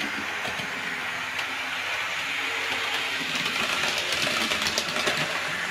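Model electric train running along the track: a steady whirr of its motor and wheels on the rails, with faint light clicks.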